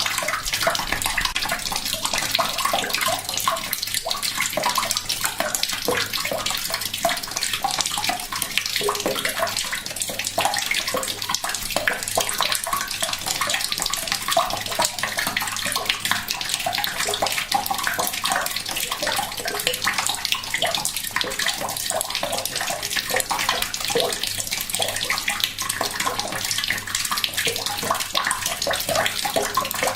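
Water from a tap running gently into a bucket: a steady trickle and splash, with small bubbling plops, not a heavy flow.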